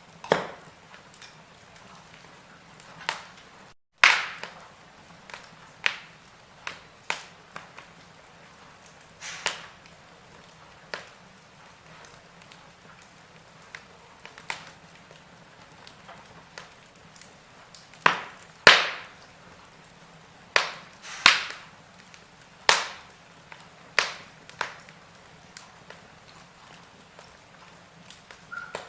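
Wood fire in a fireplace crackling: irregular sharp pops and snaps over a faint hiss, with a run of louder pops past the middle. The sound cuts out completely for a moment about four seconds in.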